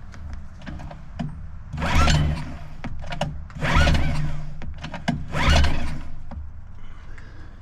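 Three pulls on the recoil starter of a Suzuki 2.5 HP DF four-stroke outboard, each a whirring pull with rising pitch as the engine turns over. It does not catch: a no-start the owner traces to the oil level sensor.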